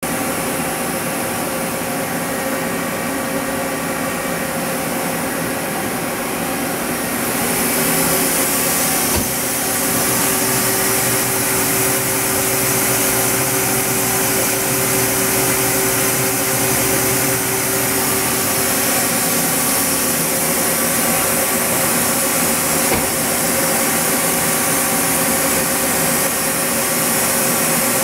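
Steady hum and hiss of a powered-up Hyundai HIT-15S CNC turning center lathe, which grows louder and hissier about seven seconds in. A steady tone runs through the middle for several seconds.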